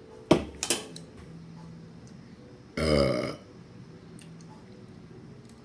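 A woman burps once, a pitched burp about half a second long, about three seconds in. Before it, near the start, come two sharp knocks in quick succession.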